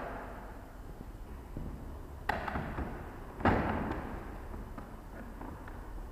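Shad hard-plastic motorcycle luggage being handled on its mounting rack: a light click a little over two seconds in, then a heavier plastic thump about a second later that echoes and fades in a large bare room.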